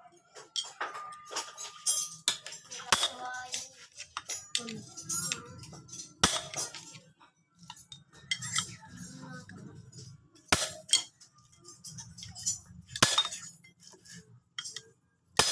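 Irregular metallic clinks and knocks of tools and parts from a Honda Supra motorcycle engine being handled during a teardown, a few ringing briefly.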